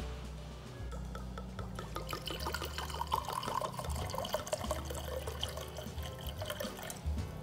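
Bourbon whiskey poured into a glass measuring cup, a thin stream splashing into the liquid as the cup fills, over soft background music.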